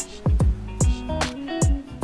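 Background music with a steady beat: deep thumps with sharp ticks about every 0.4 seconds under sustained chords.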